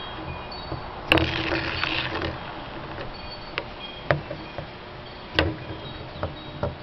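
A homemade disc spinner top knocks down onto a tiled tabletop about a second in and rattles briefly as it spins. A few more single sharp clicks follow later as it spins and touches the tiles.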